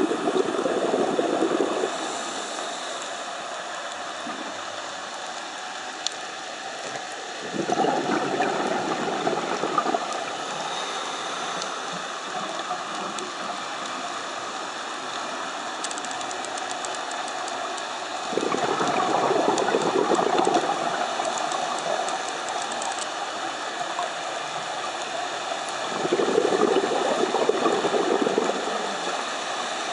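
Underwater breathing through a scuba regulator: bursts of exhaled bubbles, each two to three seconds long, come about every eight to ten seconds over a steady hiss.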